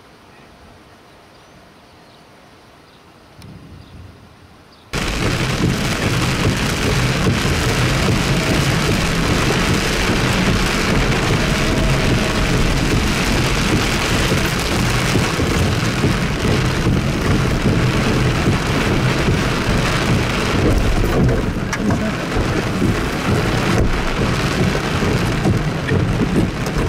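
Heavy rain drumming on a vehicle, heard from inside the cabin while it drives on a wet road: a loud, steady rush that starts abruptly about five seconds in after a quiet stretch.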